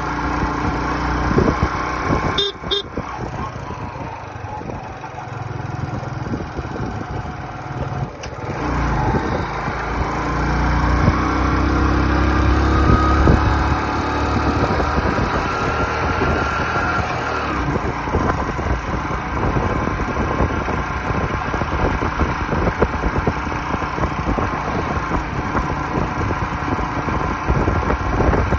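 Motorcycle engine running under way, heard from the rider's seat, with road and wind noise. The engine pulls harder and climbs in pitch from about ten to thirteen seconds in.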